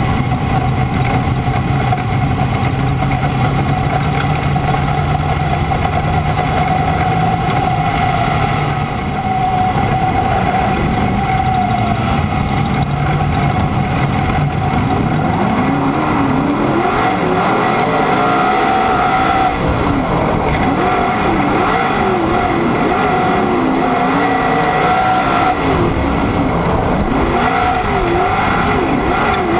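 Sprint car engine heard on board, running at a slow steady pace under a yellow-flag caution. From about halfway the engine pitch rises and falls over and over as the throttle is blipped.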